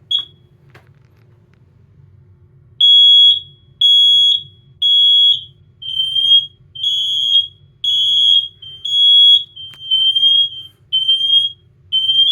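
Kidde hardwired photoelectric smoke alarm under test: a short chirp at the start, then, about three seconds in, its alarm sounds as a loud, high-pitched beep about half a second long, repeated about once a second.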